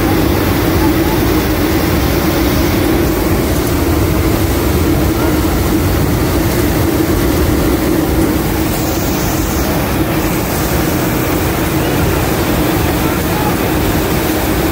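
Steady, loud drone of a C-130 Hercules's four turboprop engines, heard inside the cargo hold with the paratroop door open. One strong steady tone runs through a rushing noise of air and engines.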